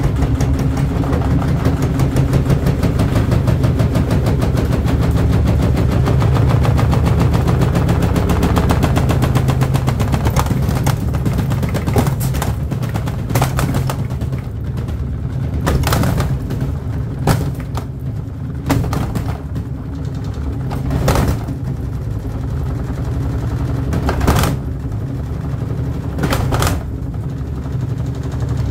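Gorenje SensoCare washing machine spinning an unbalanced bedsheet load, its drum banging rapidly and hard over a heavy low hum. After about ten seconds the rapid knocking thins out to single loud bangs a second or two apart.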